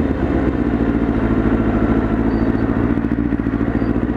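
Motorcycle engine running steadily while riding, with wind rushing over the helmet-mounted camera.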